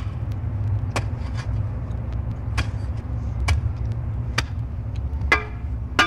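A shovel hammering a wooden marker into the ground: a series of sharp knocks about once a second over a steady low rumble.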